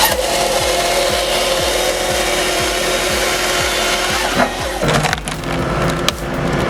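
Wood being cut by a powered saw, splintering and cracking as it goes, with a motor running steadily underneath. A little under five seconds in the sound changes and a few sharp cracks follow.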